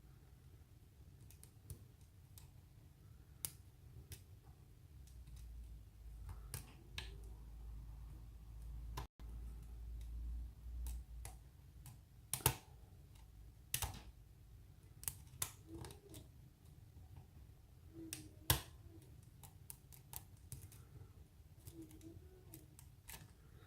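Faint, scattered metallic clicks and scrapes of a hook pick and tension tool single-pin picking a pin-tumbler lock, with a few sharper clicks about halfway through and again later on.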